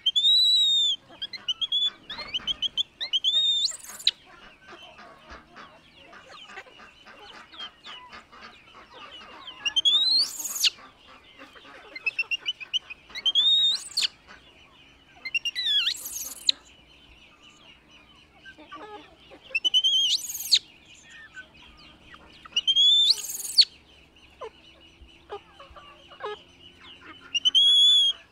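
Baby macaque crying: high-pitched, arching screams with sharp upward sweeps, repeated every few seconds over a faint steady high drone.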